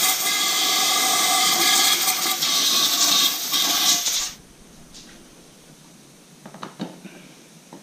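Compressed-air blow gun blowing brake cleaner out of Fox 40 fork lowers: a loud hiss with a faint whistle that cuts off about four seconds in. A few light clicks follow near the end.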